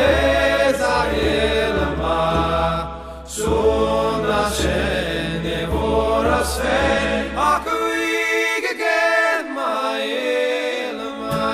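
Background music: slow, chant-like singing over a low sustained drone, which drops out about eight seconds in.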